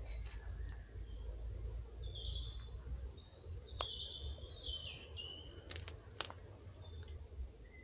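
A songbird singing a few short, high chirping phrases in the middle, over a steady low rumble. Two sharp clicks stand out, about four and six seconds in.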